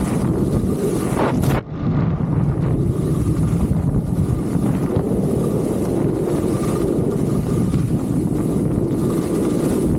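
Wind buffeting the microphone with a steady, rumbling roar. It drops out for a split second about a second and a half in, then carries on unchanged.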